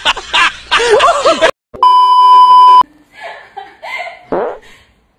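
Laughter in rising and falling squeals, then after a brief gap a loud, steady, high censor-style bleep lasting about a second, followed by quieter voices.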